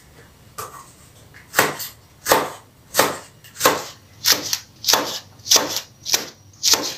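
Chef's knife chopping hot green peppers on a plastic cutting board: separate knife strokes, slow and even at first, coming faster in the second half.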